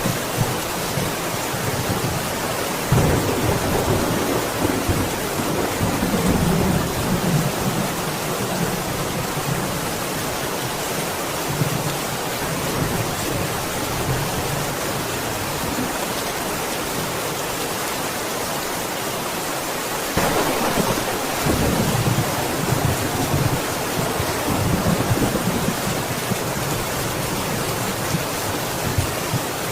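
Steady heavy rain with thunder rumbling twice, a long roll starting about three seconds in and another about twenty seconds in.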